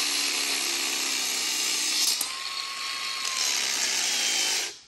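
Battery-powered grinder cutting into an electrical plug end: a steady high whine and hiss that stops abruptly near the end.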